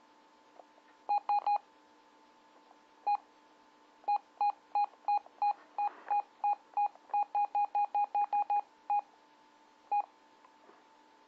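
Intek MT-5050 PMR handheld radio's key-press beeps as its buttons are pressed to step through menu settings: short identical beeps, three quickly, then a single one, then a run of about twenty that speeds up, and a last one near the end.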